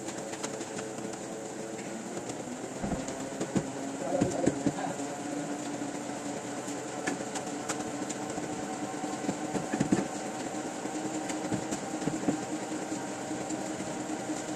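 Printing press machinery running with a steady hum, while paper sheets are handled and rustled, with a few knocks about four and ten seconds in.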